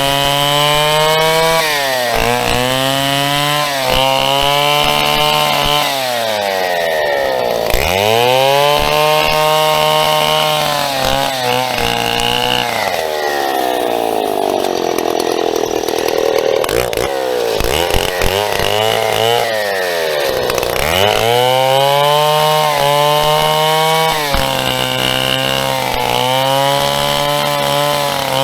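Big vintage two-stroke chainsaw cutting through a birch stem. Its engine pitch sags again and again as it bogs under load in the cut and then picks back up, with a long, deep drop in the middle.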